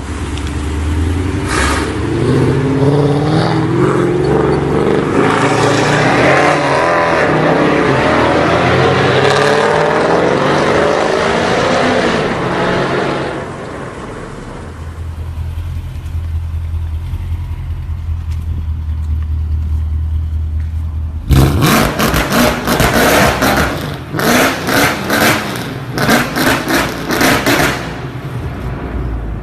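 Mercedes-Benz C63 AMG (W204) 6.2-litre V8 through an iPE exhaust, revving hard with rising and falling pitch, then settling to a steady low run. About two-thirds of the way in come several bursts of loud, sharp exhaust crackles and pops: backfire on the overrun from the free-flowing exhaust.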